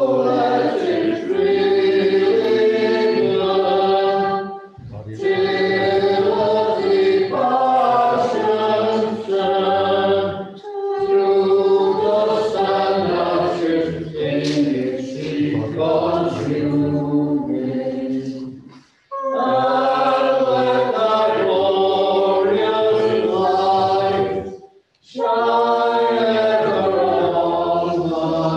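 Small choir singing unaccompanied, in phrases of about five to eight seconds with short breaks between them.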